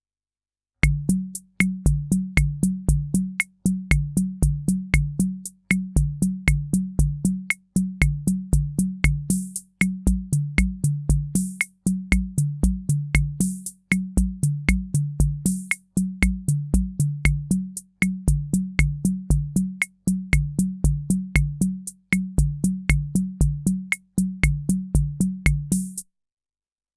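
Korg SR-120 Mini Pops analog rhythm machine playing one of its preset rhythm patterns. Low pitched drum tones and sharp clicks repeat in a bar of about two seconds, with a cymbal-like hiss in some bars. The pattern starts about a second in and stops shortly before the end.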